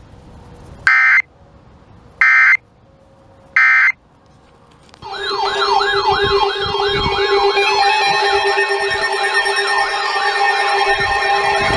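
Three short buzzing data bursts of an Emergency Alert System message, the end-of-message code after a severe thunderstorm warning. About five seconds in, several siren-like warbling alarm tones start together over a steady low tone and run on.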